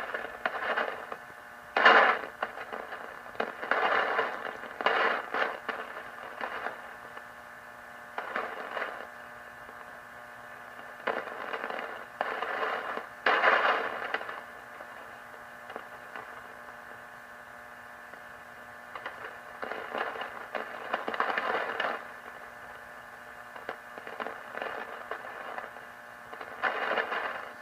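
Lightning static on a Realistic DX-160 receiver tuned to the long wave band near 200 kHz: irregular crashes and crackles of static over a steady hiss and hum. It is the sign of thunderstorms approaching, with lightning and rain expected within hours.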